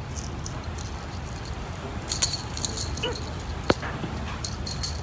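Small jingle bells jingling in short bursts as a cat reaches and bats at a toy dangled above it, with one sharp click about three and a half seconds in.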